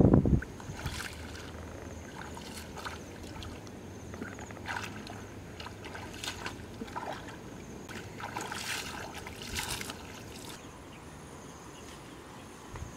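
Feet sloshing and splashing through shallow water in irregular steps, the splashes heaviest about eight to ten seconds in, with a thin steady high whine in the background.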